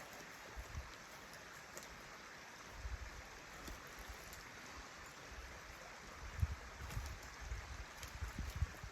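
Creek water flowing steadily, with low bumps about three seconds in and a run of stronger low thumps over the last few seconds.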